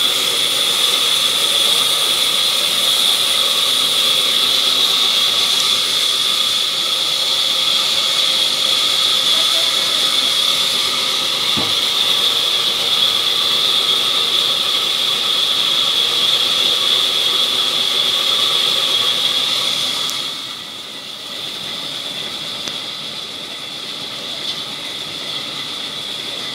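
Large sawmill band saw running and cutting a log, a loud steady high whine over hiss. About twenty seconds in the sound drops abruptly to a quieter level, with the whine still faintly there.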